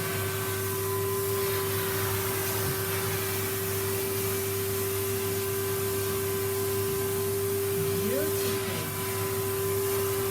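Vacuum cleaner running steadily with a constant motor hum, its brush attachment sucking up sanding dust.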